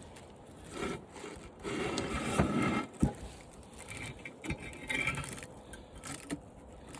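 Thin aluminum fins of an air-conditioner condenser being scraped and torn off its copper tubing: irregular metallic scraping and crinkling with a few sharp clicks.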